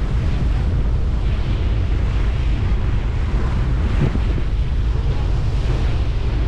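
Steady wind buffeting the microphone over the rush of open water, aboard a Staten Island Ferry under way.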